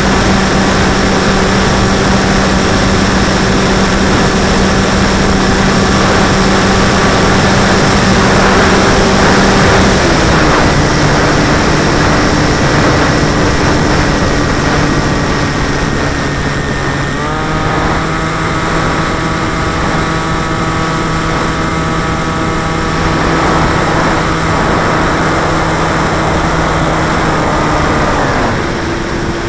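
Battery-powered electric motor and propeller of a radio-controlled model aircraft, heard close up on board: a steady whine over wind rush. The pitch drops about a third of the way in, rises a little past halfway and falls again near the end as the throttle changes.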